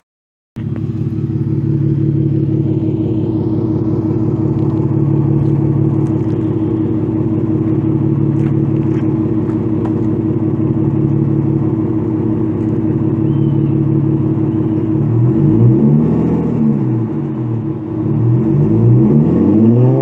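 A 2009 Dodge Charger SXT's 3.5-litre V6 idling steadily through a Flowmaster 44 Delta Flow muffler, in a single-in, dual-out exhaust with the resonator deleted. It is then revved twice near the end, the pitch rising and falling each time.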